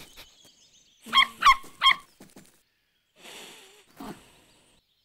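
Cartoon puppy barking three short yips in quick succession about a second in, followed by a faint rustle and a light tap.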